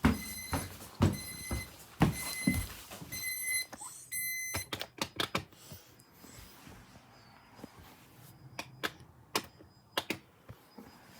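Electronic alarm beeping about twice a second, with low thuds among the beeps. The beeps quicken about three seconds in and run into a short steady tone before cutting off about halfway. Scattered sharp clicks follow.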